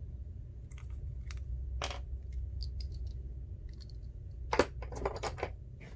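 Small metal clicks and clinks of tiny phone screws and a screwdriver being handled and set down on the work surface. A scattered click comes about two seconds in, then a quick run of several louder clinks about four and a half seconds in, over a low steady hum.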